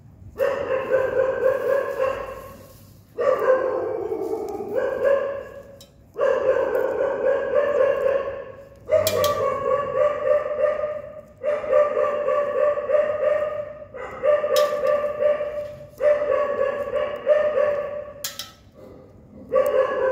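A dog crying out in a series of about eight long, drawn-out wails, each lasting about two seconds at a fairly steady pitch, with short breaks between them.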